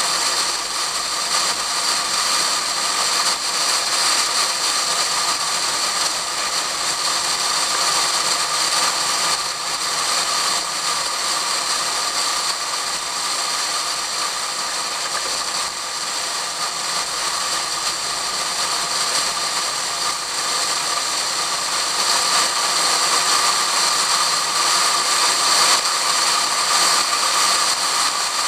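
Steady rushing wind noise over a hood-mounted camera in a waterproof case as the car drives a lap at speed, swelling slightly near the end.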